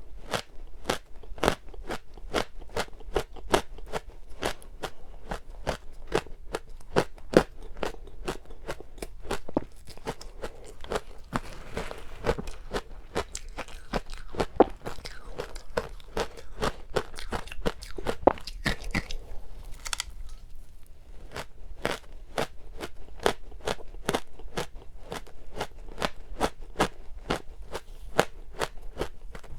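Powdery frozen matcha ice being chewed close to the microphone: a steady run of crisp crunches, two or three a second.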